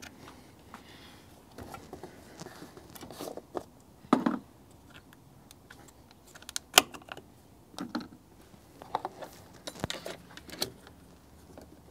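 Scattered light clicks and taps of hands working at a car's brake master cylinder reservoir, handling its cap, a plastic suction hose and a fluid-extractor bottle while the brake fluid is drained. A louder knock comes about four seconds in and a sharp click near seven seconds.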